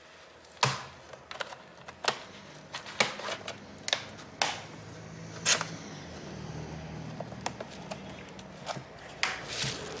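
A dozen or so irregular sharp clicks and taps as a plastic pry tool works along the seam of a laptop's bottom cover and the case is handled.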